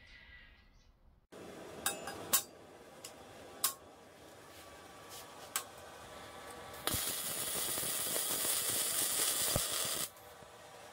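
A few sharp metal clicks and knocks as steel tube is handled on a steel welding table, then a wire-feed (MIG) welder arcs for about three seconds to tack the joint. The weld is a steady hiss, the loudest sound, and cuts off suddenly.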